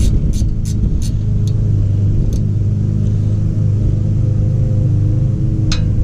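Ratchet wrench clicking about three times a second as a loosened brake caliper bolt is backed out, slowing and fading within the first two seconds, with one sharp metallic click near the end. A steady low drone runs underneath throughout and is the loudest sound.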